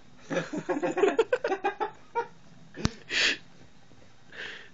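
A person laughing in a quick string of voiced bursts, then a sharp click and a short, loud breathy burst, with a fainter breathy burst near the end.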